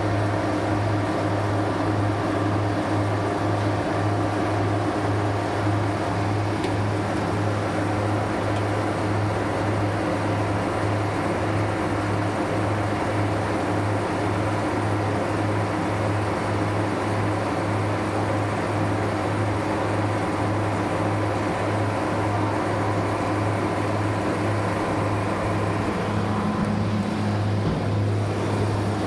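Steady machine hum of a running refrigeration condensing unit, its compressor and fan droning with a strong low hum, an extra tone joining near the end.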